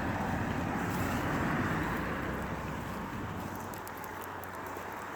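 A motor vehicle's engine and tyre noise, fading away after about three seconds.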